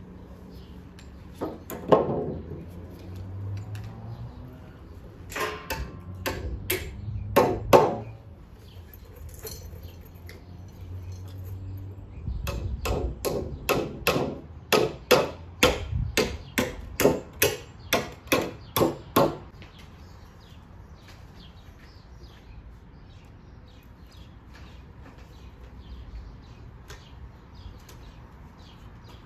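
A few knocks of wooden boards being handled, then a hammer striking wood in a steady run of about fifteen blows, roughly two a second.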